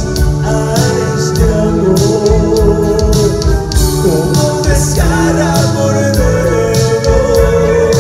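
Live grupera band playing a romantic song: sustained electronic keyboard chords over bass and steady drum hits, recorded from the crowd on a phone.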